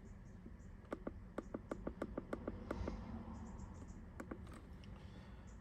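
Buttons on a handheld diagnostic scan tool clicking as they are pressed to scroll through its menu: a quick run of about ten clicks, then two more a little later.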